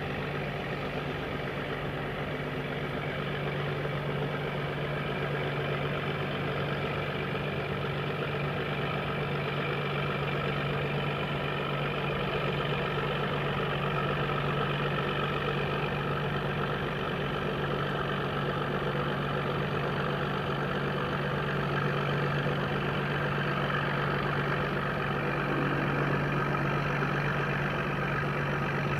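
Steady low hum of a small cargo ship's diesel engine heard across the water, growing slowly louder as the ship comes closer.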